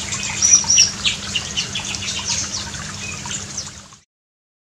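Several birds chirping and calling over a trickle of running water, with two short high whistles under a second in; the sound fades and stops about four seconds in.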